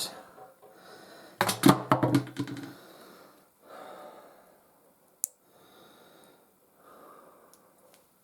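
A plastic bowl mold creaking and crackling for a second or so as it is flexed to free a cast resin blank stuck inside it, a sign that the mold release failed. Faint breathing follows, with one sharp click about five seconds in.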